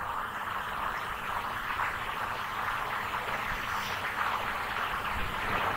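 Steady background hiss with a faint low hum and no distinct events.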